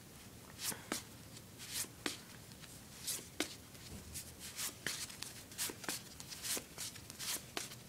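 Stack of round cardboard coasters handled and shuffled one by one: a series of light, irregular scrapes and clicks as they slide against each other.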